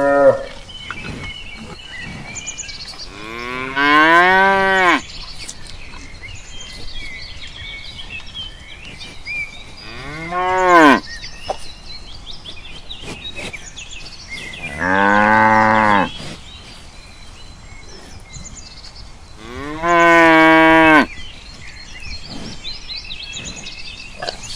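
Cow mooing: four long calls a few seconds apart, each falling in pitch at its end, with faint bird chirps in the background.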